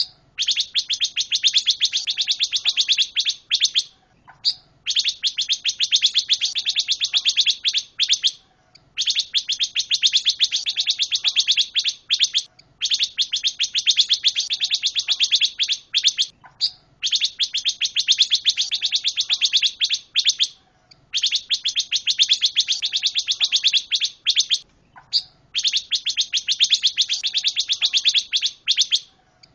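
Pancawarna songbird singing continuously: a long, very rapid, high trill in bouts of about three to four seconds, repeated over and over with short pauses between, and a faint soft low note in each pause.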